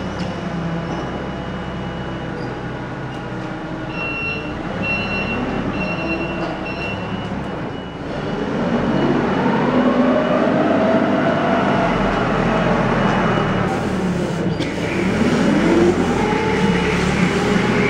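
Caterpillar propane forklift's engine running, its pitch rising and falling several times as it drives about with a pallet load. A few short high beeps sound about four seconds in.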